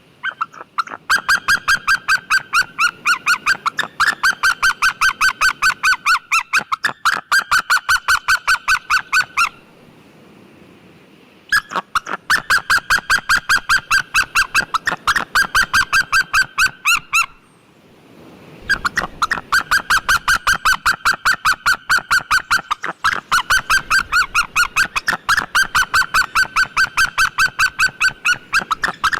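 White-tailed eagle calling: long, rapid series of yelping notes, about five a second, in three runs separated by short pauses.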